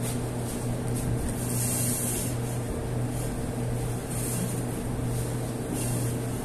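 Steady low machine hum, with a few brief rustling hisses from a paratha flatbread being torn by hand.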